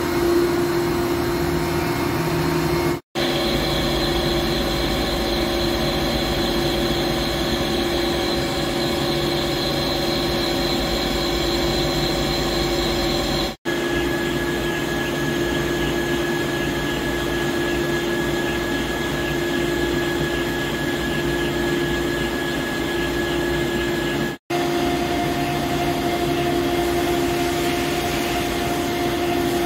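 Heavy CNC lathe (Hankook PROTEC-9NC) running on a cut in a steel shaft: a steady machine hum with high whining tones. The sound drops out briefly three times, and the whine changes pitch after each dropout.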